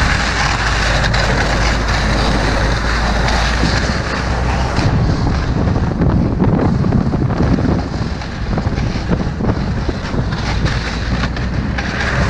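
Ski-Doo snowmobile engine running steadily while riding over snow, with heavy wind rush on the microphone.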